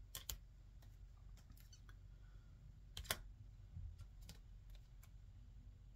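Faint, scattered clicks and light taps of plastic card top loaders being handled and sorted, over quiet room tone, with the sharpest click about three seconds in.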